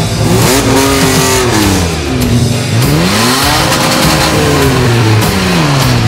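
Off-road 4x4s, Mitsubishi Pajeros among them, driving past one after another. Each engine note rises as the vehicle pulls away and falls off as it goes by, twice over.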